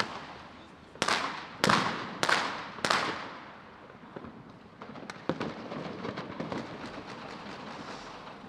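Battle sound effect of gunfire and blasts: four loud shots about half a second apart, each with a long fading tail, then scattered fainter cracks over a low rumbling background.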